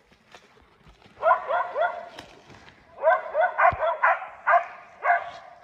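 Hunting laikas barking in quick runs as they hold a bear at bay: three or four barks about a second in, then a longer run of about six barks from about three seconds.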